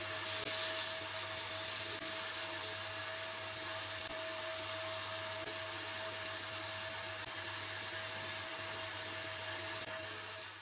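Sandblast cabinet in use: the blast gun hissing steadily as it sprays abrasive grit onto small brass level parts, with a steady whine underneath. It cuts off abruptly at the end.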